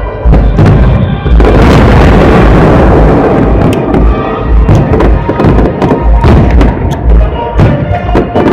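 Fireworks display with music playing: heavy booms of bursting shells, a dense continuous volley of bursts from about a second and a half in for about two seconds, then a string of separate sharp bangs.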